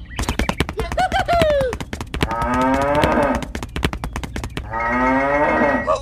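Cattle mooing: a long, drawn-out moo from about two seconds in, and another starting near the end. A rapid run of sharp clicks with a short falling call fills the first two seconds.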